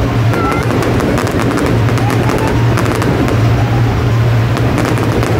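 Fireworks going off in quick succession: a dense run of sharp cracks and bangs, over a steady low hum.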